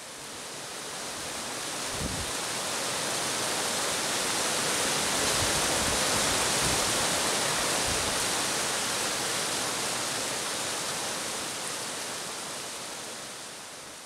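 Rushing water of a mountain stream cascading over rocks near its source: a steady, even rush that swells up at the start and fades away near the end, with a few brief low thumps underneath.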